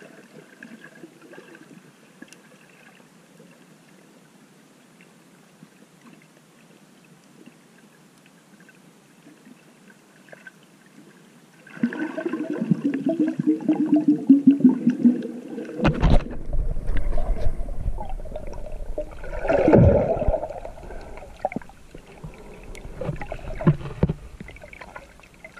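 Water sloshing and bubbling around a swimmer's camera in its waterproof housing, muffled. It is faint for the first half, then turns loud about halfway through, with two strong bursts of splashing and churning water near the end.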